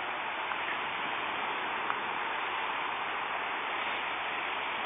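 Steady hiss of heavy rain mixed with a fast-flowing, flooded creek.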